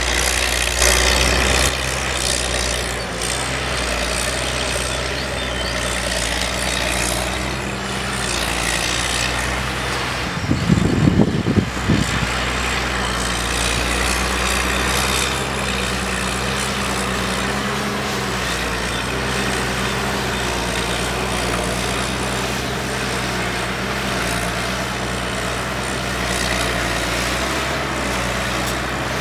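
Diesel engines of a forestry harvester and forwarder running steadily, the engine note rising and falling slightly as they work. About ten seconds in there is a brief, rough, louder burst.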